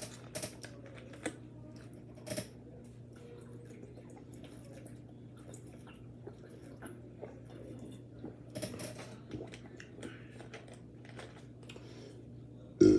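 A person chewing food, with scattered short crunches and wet clicking mouth sounds and a few louder snaps.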